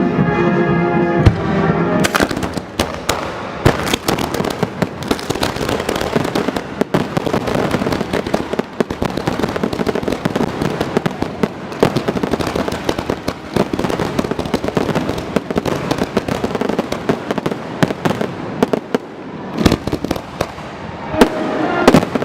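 Fireworks going off in a dense, continuous barrage of bangs and crackles. Music plays in the first second and comes back near the end.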